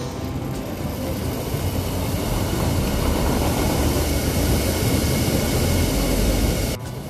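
Inflatable sled tubes rolling down a roller slide, the plastic rollers spinning under them in a steady low rumble that drops off suddenly near the end.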